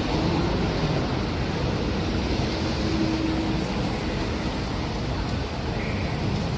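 Steady city street noise: road traffic running past.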